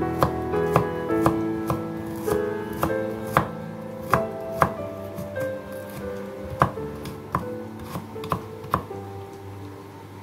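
Kitchen knife slicing garlic cloves on a wooden cutting board: sharp, uneven knocks of the blade against the board, a little under two a second, with music playing underneath.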